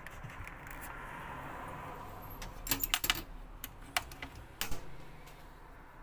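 Black plastic lid of a drum-type vacuum cleaner being handled and fitted back onto the canister: a soft scraping, then a cluster of sharp plastic clicks and knocks about halfway through and another knock near the end. The motor is not running.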